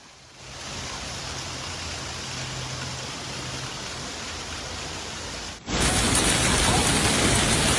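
Steady rushing noise of heavy rain and running water, with a faint low hum underneath. About five and a half seconds in it cuts suddenly to a louder downpour.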